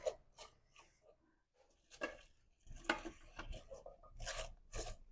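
Cut raw vegetables (cabbage leaves, carrot pieces, pea pods) rustling and crunching as they are tipped and pressed by hand into an aluminium pressure cooker: faint, irregular rustles and light taps, starting about two seconds in.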